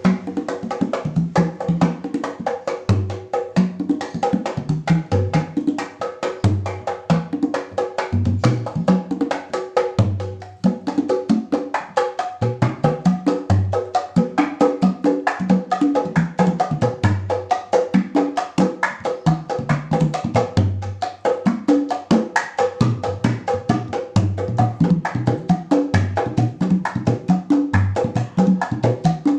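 Mini jaipong kendang set, a large wooden Sundanese barrel drum with small kulanter drums, played by hand in a fast, busy, continuous rhythm. Low strokes at changing pitches mix with sharp, dry slaps.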